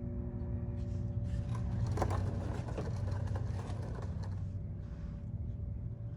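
A steady low rumble, with light clicking and rustling from about one second in until about four and a half seconds.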